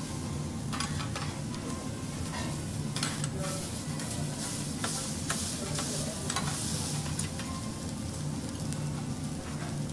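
Food sizzling on a steel teppanyaki griddle while metal spatulas scrape and clack against the plate, turning and chopping a vegetable stir-fry, with irregular sharp clicks over a steady sizzle.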